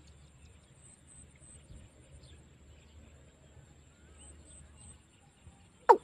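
Watercock (Gallicrex cinerea) calling: a long pause with only a faint background hiss, then one loud, short call note falling in pitch near the end.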